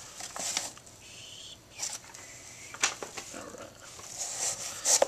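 Rustling and handling of packaging as items are taken out of a shipping box, with a few sharp clicks.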